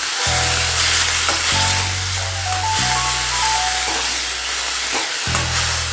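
Shredded cabbage sizzling in a metal kadai as it is stirred with a spoon, under background music of held low notes and a simple melody that change about every second.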